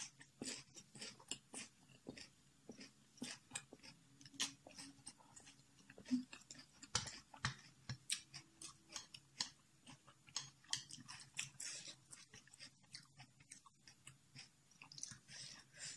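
A person chewing and crunching a mouthful of spicy instant noodles with vegetables: many small, irregular wet clicks and crunches.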